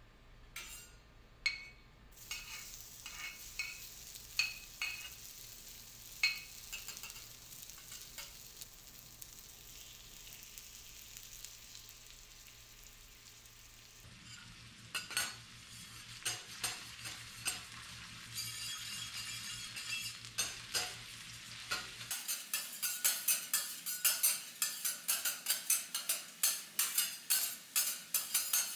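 Korean beef steak sizzling on a teppanyaki griddle, with metal spatulas clinking against the hot plate now and then. In the last several seconds the spatulas strike the plate in a quick, steady run of taps that grows louder.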